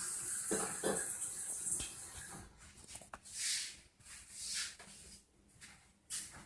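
Australian Shepherd snoring in its sleep: two short low snores about half a second in, then slower, breathy rasps every second or so.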